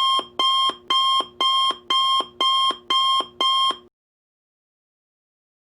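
Electronic alarm beeping sound effect: eight evenly spaced beeps, about two a second, stopping about four seconds in.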